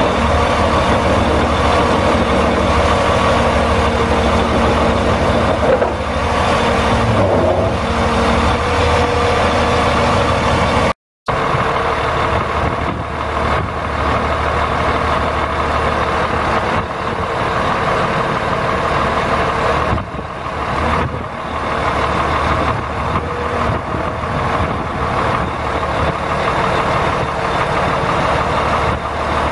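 Caterpillar C12 inline-six diesel of a heavy crane truck idling steadily. The sound drops out for an instant about eleven seconds in.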